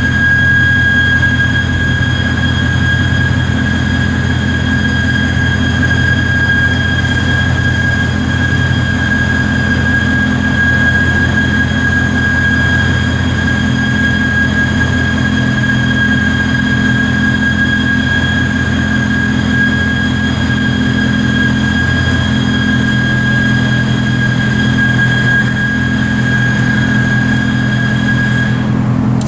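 An inflatable rubber pipe plug being filled with compressed air through its inflation hose: a steady high whistle of air flow over a low, steady hum. The whistle cuts off shortly before the end, as the air is shut off with the plug inflated to its cylindrical form.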